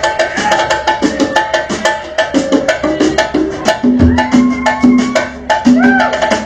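Instrumental music with quick, steady percussion clicks under sustained pitched notes.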